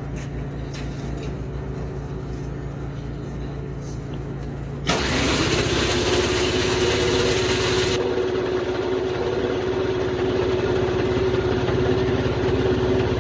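Toro CCR2450 snowblower's two-stroke engine being cranked by its electric starter. It starts abruptly about five seconds in and runs steadily for about eight seconds: a steady starter whine over the fast pulsing of the engine turning over. The engine never catches, a no-start that the mechanic traces to bad gas. Before the cranking, a quieter steady hum.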